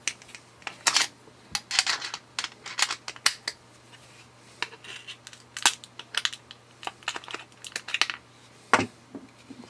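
Small screwdriver working at the screws inside a plastic power-bank case: irregular sharp clicks and short scrapes of the metal tip on the screws and plastic as the parts are handled.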